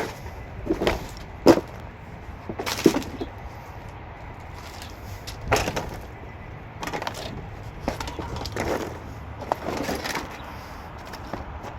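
Footsteps walking around a car: irregular scuffs and light knocks, roughly one every second or so.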